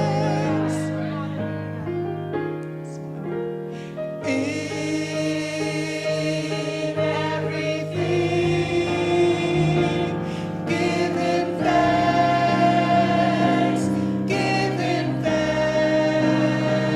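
Choir singing a gospel song in sustained, blended chords. It is softer for a moment about two to four seconds in, then swells fuller again.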